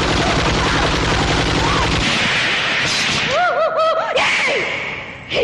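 Dramatic soundtrack sound effect: a loud, rapid rattle like a burst of gunfire for about two seconds, then a hiss with a quick run of short rising-and-falling tones, fading near the end.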